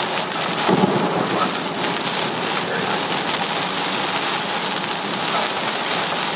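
Torrential thunderstorm rain pelting a car's windshield and roof, heard from inside the car as a steady, loud hiss. There is a brief low thump about a second in.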